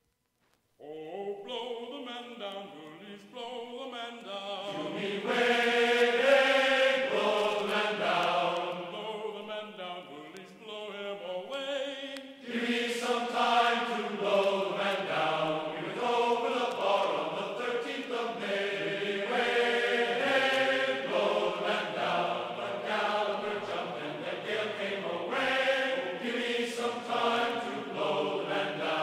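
Background music with chant-like sung voices, starting about a second in.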